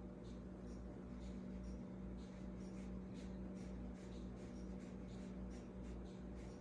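Paintbrush stroking and dabbing on watercolor paper in short, repeated strokes, about two or three a second, over a steady low hum.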